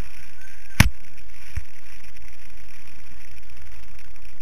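Steady muffled rushing noise from a GoPro in its sealed housing being pushed through a foam pit, with a sharp click about a second in and a fainter one shortly after.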